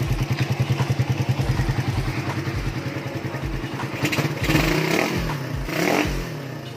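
Suzuki Raider 150's single-cylinder four-stroke engine idling steadily, then revved twice with quick throttle blips about four and a half and six seconds in, the pitch rising and falling back each time.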